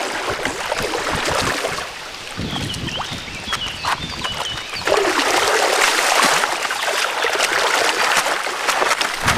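Shallow river water splashing as a large wels catfish thrashes while being hauled by hand, and the handler wades. The splashing grows heavier about five seconds in.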